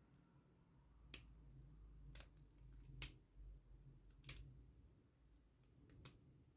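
Faint, sharp clicks about a second apart, six in all, from a pin tumbler padlock being picked: pick and pins clicking in the keyway as pins set.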